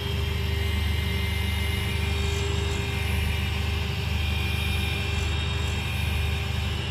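Jewelry inside-lathe running steadily with a hum, its spindle turning a wedding ring while a cutting tool works inside the ring.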